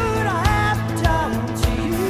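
Background music: a pop song with a sung melody over a steady drum beat.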